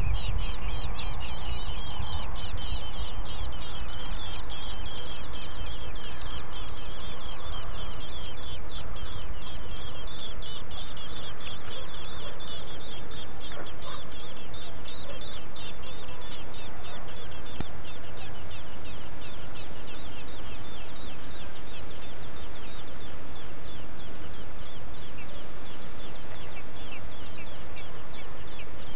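Eurasian blackbird nestlings begging at the nest: rapid, high-pitched cheeping calls, dense at first and thinning out after about the middle, over steady low background noise.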